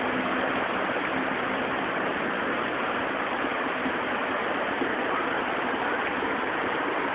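Steady rushing noise of a heavy rainstorm and flash-flood runoff water in the street, even throughout.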